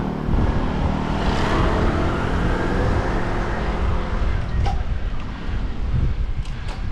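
Wind rumbling on a bike-mounted action camera's microphone over road noise while riding uphill, with a motor vehicle's noise fading away over the first few seconds. A few faint ticks come near the end.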